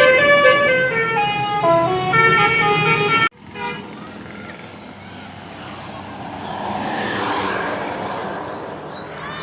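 Bus 'basuri' telolet horn playing a tune of stepped musical notes, cut off abruptly about three seconds in. After the cut comes road noise that swells and fades, as of a vehicle passing.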